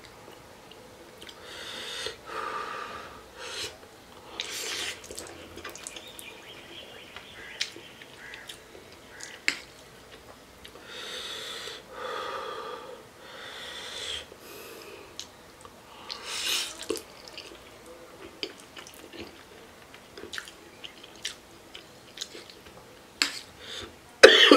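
A man eating very spicy ramen noodles, drawing sharp hissing breaths through his mouth every few seconds against the heat, with faint chewing clicks in between. A loud burst of coughing comes near the end.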